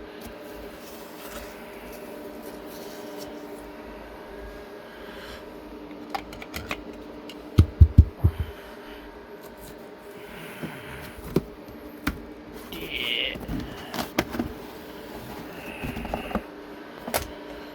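A cardboard shipping box being cut open and unpacked by hand: scattered clicks and scrapes, a few loud thumps about eight seconds in, then scraping and rustling of packaging, over a faint steady hum.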